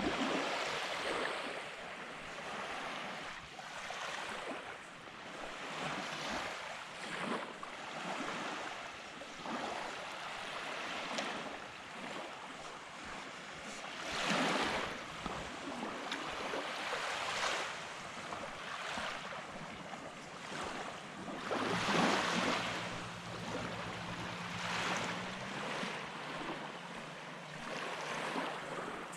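Small waves breaking and washing up on a sandy beach, a rush of surf every few seconds over a steady hiss of wind. A faint low hum comes in for a few seconds past the middle.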